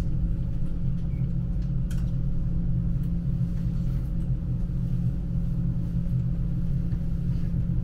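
S-Bahn train running along the track, heard from on board: a steady low rumble with a faint steady hum above it and a few light clicks.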